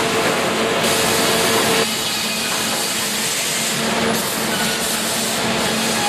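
Sawmill flitching and resaw line running: steady loud noise from the saws and powered log conveyor rollers, with a droning tone that stops about two seconds in.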